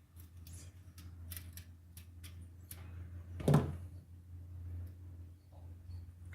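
Small clicks and taps of needle-nose pliers working a wire on hair dryer parts, with one louder knock about three and a half seconds in, over a low steady hum.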